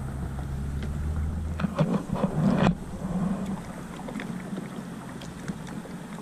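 Kayaking on flat water: a low rumble on the microphone for the first second and a half, then a few loud knocks and splashes that stop suddenly. After that, a quieter wash of water against a plastic sit-on-top kayak hull, with small drips and clicks.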